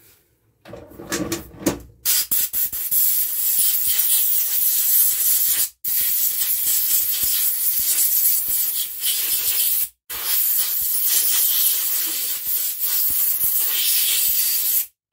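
A loud, steady spraying hiss in three long stretches, breaking off abruptly about six and ten seconds in.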